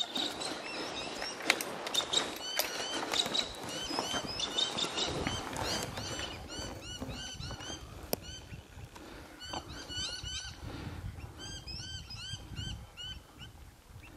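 Birds calling in a rapid run of short, arched chirping notes, in several bouts. A few sharp clicks sound in the first two seconds and once about eight seconds in.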